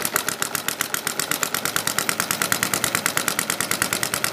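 Home-built 7/8-inch bore by 1 1/4-inch stroke four-stroke, air-cooled model engine running steadily, with rapid, even firing pops.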